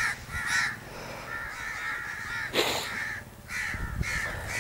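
Crows cawing over and over, harsh calls in quick runs of two or three a second with short gaps between runs. About halfway through, a brief burst of noise, the loudest moment.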